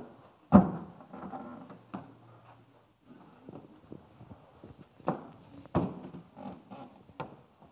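Thuds of an athlete's hands, body and feet hitting rubber gym flooring during burpees. There is a loud thump about half a second in, lighter knocks and shuffles after it, and two more strong thumps around five and six seconds in.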